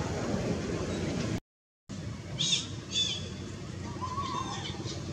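Steady outdoor background noise that cuts out for half a second at an edit, followed by a few short, high-pitched chirping animal calls and one lower call.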